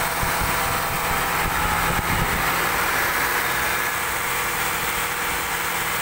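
Land Rover Range Rover (L405) engine idling steadily with the hood open, an even hum with no change in speed; the engine is overheating.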